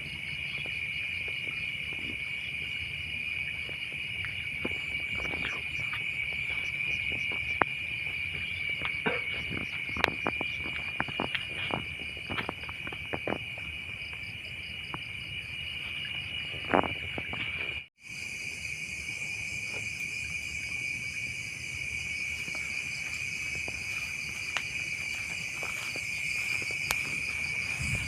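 Steady chorus of night insects, a continuous high trill, with scattered sharp clicks and knocks through the first half or so. The sound drops out for a moment about two-thirds of the way through, then the trill resumes.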